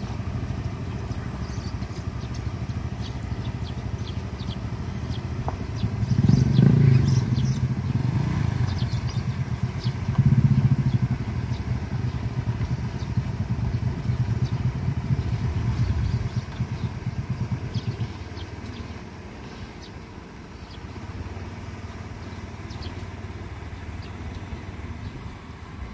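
Motorcycle and car engines running close by as vehicles pass on the road. The engine noise swells louder twice, about six and ten seconds in, and eases off after about sixteen seconds.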